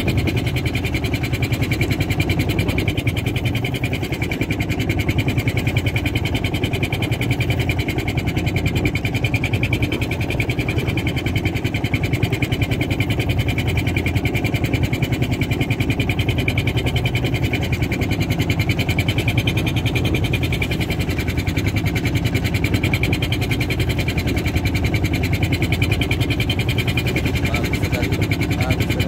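Fishing boat's engine running steadily at an even pace, with a fast, regular beat.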